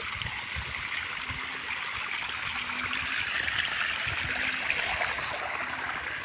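Running water, a steady rush that swells a little around the middle, with low thuds on the microphone.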